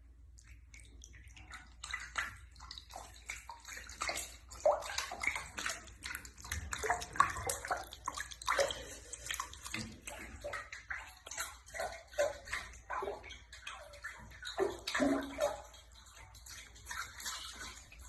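Water splashing and sloshing in quick, irregular splashes, starting about a second and a half in.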